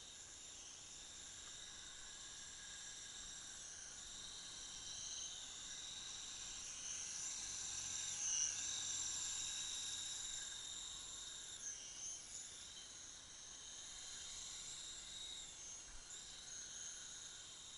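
A 52-inch remote-control helicopter's motor and rotors making a thin, high-pitched whine. The pitch dips briefly and comes back up a couple of times, and the whine is loudest a little past the middle.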